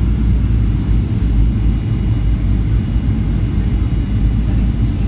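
Inside a jet airliner's cabin on final approach: the steady low rumble of the engines and the air rushing past the fuselage.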